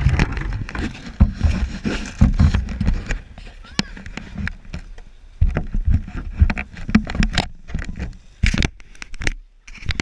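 Handling noise on an action camera: irregular knocks, bumps and scraping right at the microphone over a low rumble, quieter for a couple of seconds in the middle.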